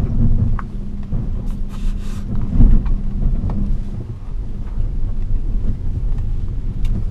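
2015 Mitsubishi Outlander Sport rolling slowly downhill over soft dirt and gravel, heard from a camera mounted on the outside of the car: a heavy low rumble of tyres and body with a steady low engine hum. Scattered stones click, and a louder knock comes about two and a half seconds in.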